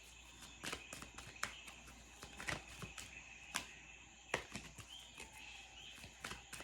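Recorded jungle night ambience playing faintly: a steady high-pitched insect drone, with irregular sharp clicks scattered throughout.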